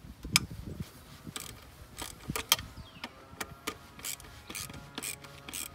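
Hand ratchet wrench clicking in short, uneven strokes while bolts are being loosened.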